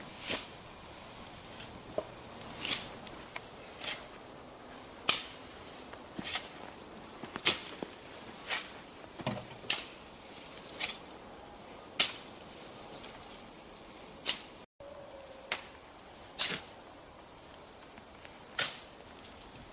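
A steel shovel scooping sand from a heap to load it into steel tipping skip wagons: a sharp, gritty scrape every one to one and a half seconds, at an uneven pace.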